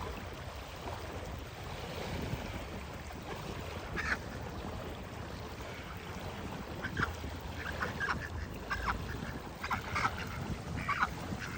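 Ducks quacking in short calls: one about four seconds in, then a run of them over the last few seconds, with a steady low wind rumble on the microphone underneath.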